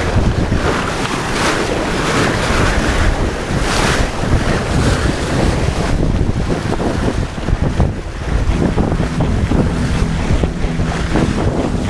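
Sea water rushing and splashing along a yacht's bow as it moves through choppy waves, with wind buffeting the microphone in gusts.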